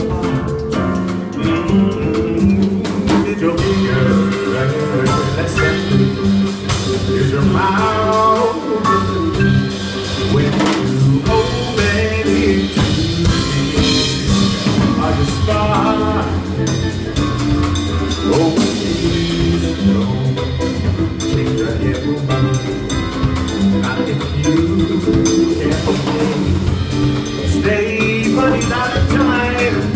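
Live jazz combo of electric guitar, upright bass and drum kit playing an instrumental break, with a walking bass line and drums keeping time under the lead.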